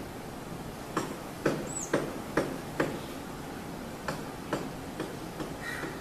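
A female purple-rumped sunbird bathing in shallow water, splashing with its wings in a run of small, sharp splashes, five in quick succession and then two more, over a steady hiss. A single brief high chirp sounds among the splashes.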